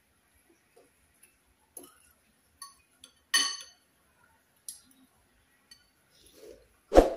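Fork and soup spoon clinking against a ceramic soup bowl: a few separate light clinks, one ringing out about three seconds in, then a louder knock near the end.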